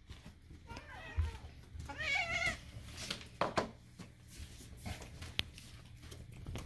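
Domestic cat making two short, odd calls with a wavering pitch, about a second apart, followed by a few light clicks and taps.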